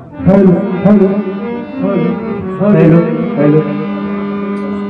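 Bhajan music: tabla strokes and a wavering melody over a harmonium, settling about halfway through into one steady held harmonium chord.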